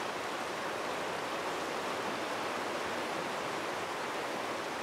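Shallow stream flowing over stones: a steady rushing of water.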